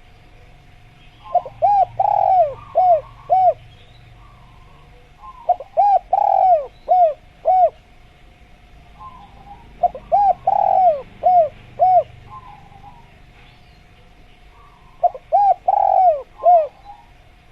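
Spotted dove (tekukur) cooing: four phrases, each a quick run of five or six short rounded coos, repeated about every four to five seconds.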